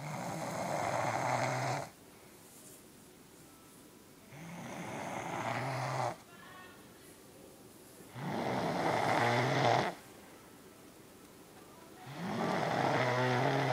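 A sleeping woman snoring: four long snores of about two seconds each, coming roughly every four seconds.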